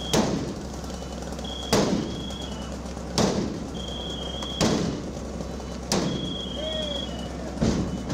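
Heavy blows about one and a half seconds apart, six in all, each ringing briefly: firefighters striking with a hand tool during overhaul or forcible entry. A high electronic beeping tone repeats between the blows over a steady low hum.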